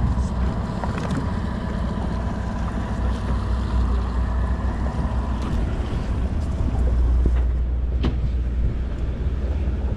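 Boat engines running at idle, a steady low rumble, with some wind on the microphone.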